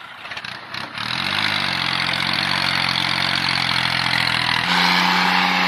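Tractor engine running: it picks up about a second in with a brief rise in pitch, then runs steadily, and shifts to a louder, higher note near the end.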